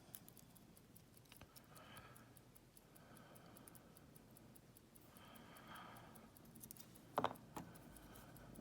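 Faint small metal clicks and taps from padlock pins and tweezers being handled, with two sharper clicks about seven seconds in.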